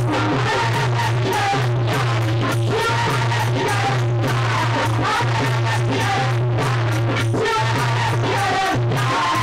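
Bhajan music led by a harmonium, holding long low notes under a melody, with repeated percussion strokes.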